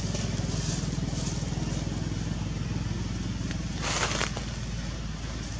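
A small engine running steadily at an even low pitch with a fast pulse. About four seconds in, a short crackling rustle is heard over it.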